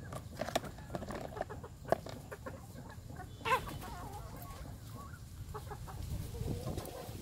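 Water mimosa stems snapped by hand, a series of short sharp snaps, with a hen clucking, loudest about three and a half seconds in.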